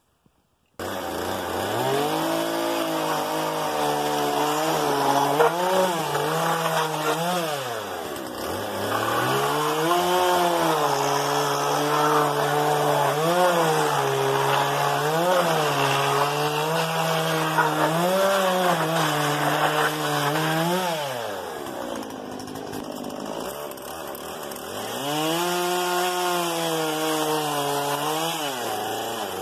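Husqvarna 120 Mark II two-stroke chainsaw cutting through a stack of old wooden boards. It comes in abruptly about a second in and runs at high revs, the engine pitch dipping and rising again and again as the chain bites the wood. Twice it drops back toward idle, once briefly and later for a few seconds, then revs up again.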